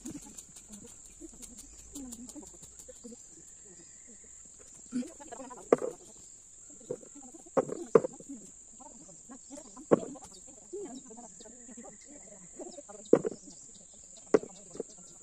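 Insects keep up a steady high-pitched drone. About half a dozen sharp, irregularly spaced knocks from about five seconds in are hand hoes striking soil as potatoes are dug.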